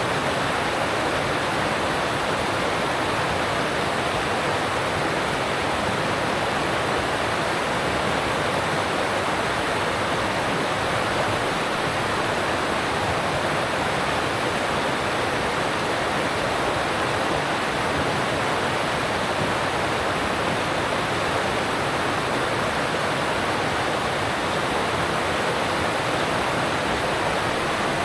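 Alpine stream rushing steadily over rocks: a constant, even rush of water with no change in level.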